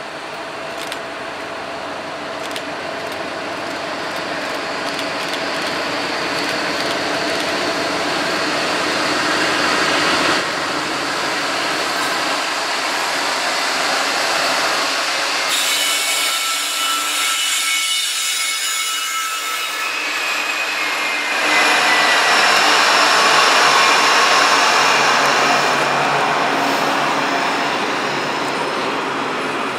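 Freight train passing close by: several diesel locomotives approach and go by, their sound building over the first ten seconds, followed by trailer-laden intermodal flatcars rolling past with steady wheel-on-rail noise. A few high whining wheel-squeal tones sound partway through.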